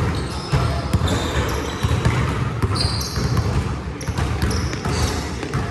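Basketball bouncing on a court, a run of sharp thuds, mixed with several short, high squeaks.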